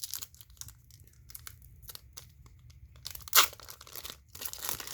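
Foil wrapper of a Pokémon card booster pack being torn open and crinkled: scattered crackles, with one sharp, louder crackle a little past three seconds in.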